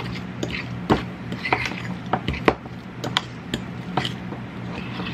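Metal fork clinking and scraping against a ceramic bowl while mashing and stirring deviled-egg yolk filling, with sharp taps at irregular intervals, several a second at times.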